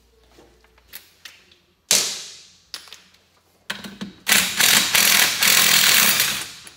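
A sharp metallic clank about two seconds in. Then a cordless DeWalt power tool runs hard for about three seconds, spinning the oil sensor out of a Honda VT1100 crankcase with a socket.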